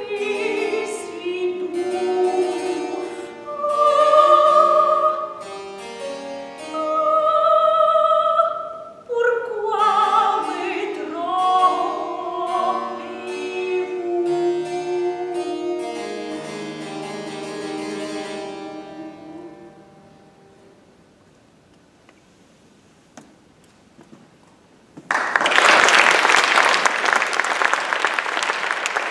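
A soprano sings the close of a French Baroque opera air with harpsichord accompaniment, the last notes dying away about twenty seconds in. After a few seconds of quiet, audience applause breaks out suddenly and keeps on.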